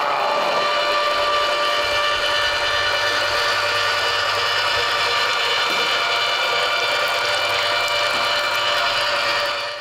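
Electric Tre Spade tomato-milling machine running steadily, its motor humming as cooked tomatoes are pressed through to separate the purée from the skins and seeds.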